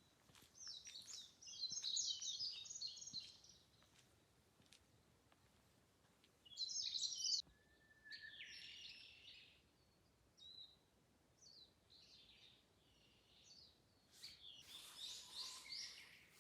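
Wild birds calling in a forest: several bouts of quick, high chirping, the loudest about two seconds in and again about seven seconds in, with scattered shorter calls between and another bout near the end.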